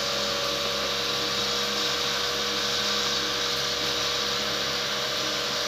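Cotton candy machine running: its spinner head whirs steadily, with a steady hum and an even hiss over it, as sugar floss is flung out into the bowl.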